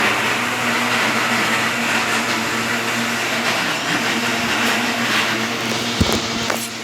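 A household electric appliance's motor running steadily: a loud whirring noise with a low hum. A brief low knock about six seconds in.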